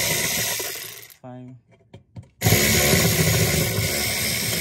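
Cordless electric screwdriver running, backing out screws from a damper motor's mounting. There are two runs: the first stops about a second in, and the second starts about halfway through and tails off near the end.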